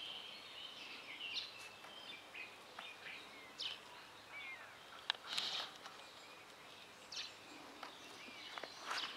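Small birds chirping in short, scattered calls, some sliding up or down in pitch, over faint outdoor background noise. A single sharp click about five seconds in.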